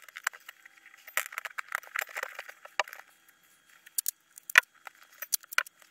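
Duct tape pulled off the roll and torn into short strips: irregular crackling, then a few sharp clicks near the end.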